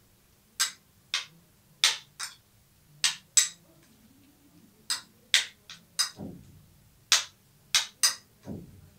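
Eating cream fruit chaat with a spoon from a plate: a string of short, sharp, irregular clicks and smacks, one or two a second, with two soft low sounds in the second half.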